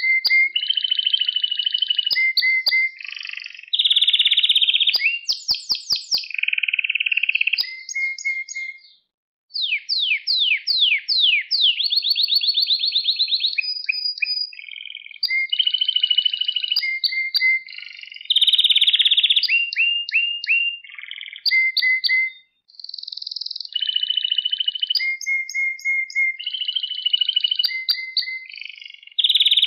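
Domestic canary singing a long, continuous song of fast trilled phrases. Each phrase is a rapid run of one repeated note, and the bird switches to a new phrase every second or two, with short breaks about nine seconds in and again near twenty-two seconds.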